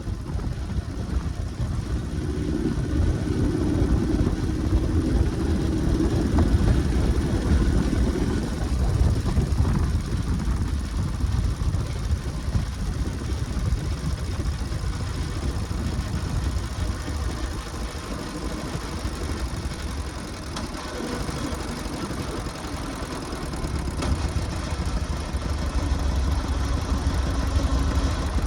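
R75WH motorcycle engine running steadily with a low, even chug. It grows louder for several seconds near the start and again near the end, with a quieter stretch in between.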